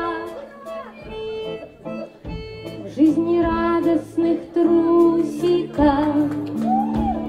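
A live band starts a song: low bass notes come in about two seconds in, then the full band with guitar and a woman singing.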